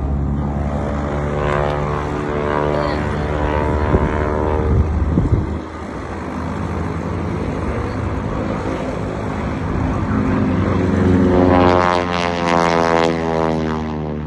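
Propeller-driven aerobatic airplane engine droning as it manoeuvres, its pitch rising and falling. It is loudest as the plane comes low past, about three-quarters of the way through.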